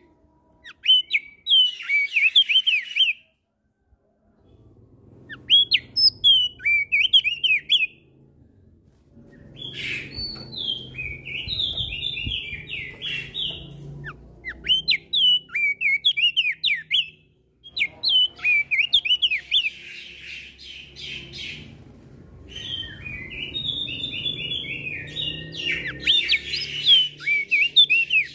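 Crested darkeye (opior jambul) singing in bursts of rapid, high, chattering whistled phrases a few seconds long with short pauses between, mixed with other birds calling, over a low rumble in the background.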